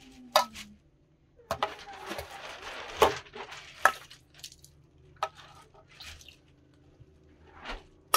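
Metal skimmer ladle scraping in a cooking pot and clinking against a stainless steel bowl as stew is ladled out: a handful of sharp metallic clinks with a scraping, sloshing stretch in the first half, then lighter taps.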